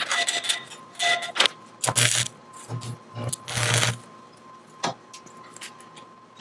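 Stick welder arcing in short bursts while a steel ring is tacked onto an auger bit: crackling sizzle with a low buzz. There are several quick welds in the first four seconds, the last and longest just before four seconds, then one brief one near five seconds.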